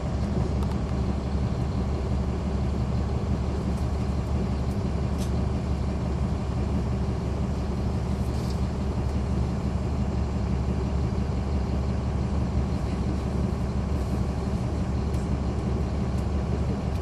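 Caterpillar C13 ACERT diesel engine of a NABI 40-foot transit bus running at a steady speed, heard from inside the cabin. A few faint clicks and rattles sound over it.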